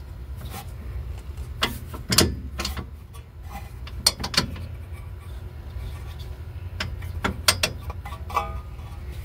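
Scattered metal clicks and knocks from a car's disc-brake caliper and pads being handled and moved by hand, the pads shifting in their bracket.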